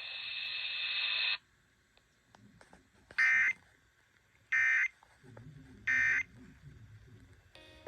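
Radio hiss that cuts off about a second in, then three short identical bursts of warbling digital data tones about a second and a half apart: the Emergency Alert System end-of-message code that closes the warning.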